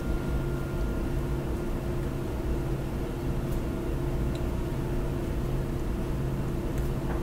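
Steady low hum of room background noise, with a few faint soft clicks.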